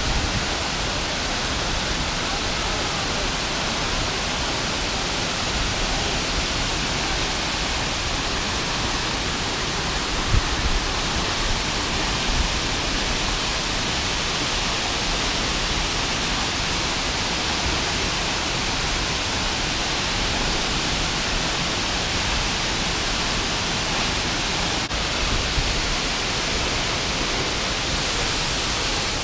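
Large waterfall plunging into its pool: a steady, unbroken rush of water noise.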